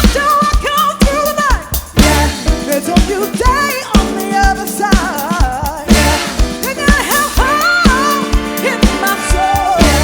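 Upbeat disco-funk music from a band, with a steady drum beat and a wavering melody line over it.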